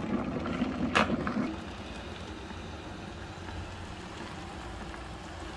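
Electric kettle of water rumbling at the boil with a low hum, a sharp click about a second in, then a quieter even hiss as the hot water is poured from the kettle into a cup of instant noodles.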